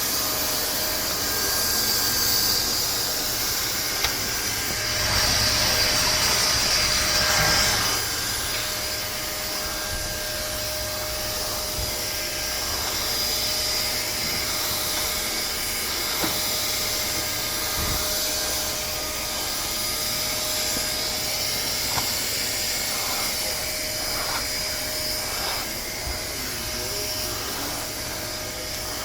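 Bissell Zing bagless canister vacuum cleaner running: a steady motor whine over rushing air hiss, louder for a few seconds about five seconds in, with a few light knocks.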